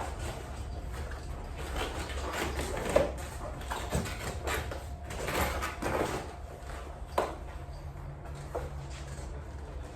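A bicycle tire liner being worked into a tire by hand: irregular rubbing and scraping against the rubber, with a few sharp knocks, the loudest about three seconds in and another about seven seconds in.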